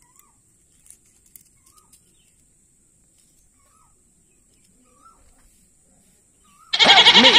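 Mostly very quiet with a few faint short chirps, then near the end a loud bleating farm-animal call starts suddenly, its pitch bending up and down.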